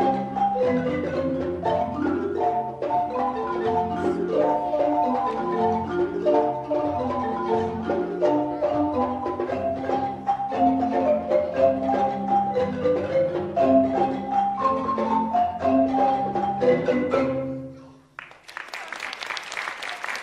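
An ensemble of wooden marimbas playing a busy, driving pattern of mallet notes, which stops about 17 seconds in. Audience applause follows in the last couple of seconds.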